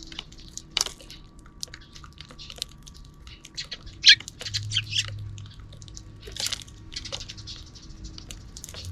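Sparrows chirping off and on: short high chirps scattered throughout, with louder calls about four seconds in and again past the middle, over a faint steady hum.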